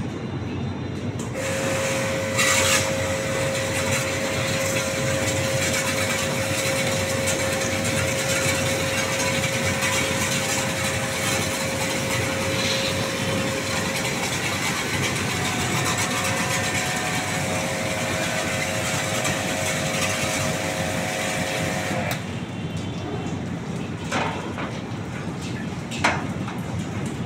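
A motor-driven machine runs with a steady hiss and a whine, starting about a second in; the pitch of the whine shifts partway through. It cuts off suddenly a little over twenty seconds in, and two sharp knocks follow.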